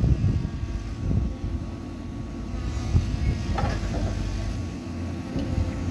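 Excavator diesel engines running: a low, uneven rumble with a faint steady whine over it.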